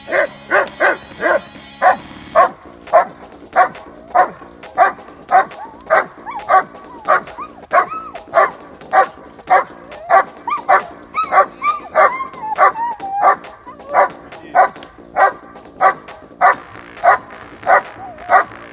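Dog barking steadily at a helper in a protection-sport hiding blind, about two barks a second, with short whines between some barks: the bark-and-hold exercise.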